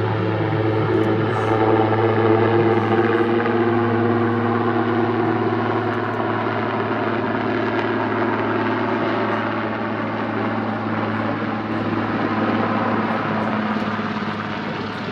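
Puma helicopter flying past, its rotor and turbines giving a steady, even-pitched hum that swells slightly a couple of seconds in and eases toward the end.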